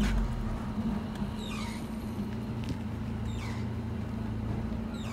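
A vehicle's engine running steadily while driving, with a low hum, and a few short high squeaks that fall in pitch every second or so.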